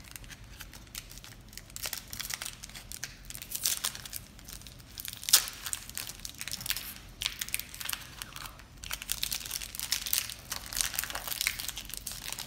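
Foil Pokémon card booster pack crinkled and torn open by hand: a steady run of irregular crackles, with one louder crackle about five seconds in.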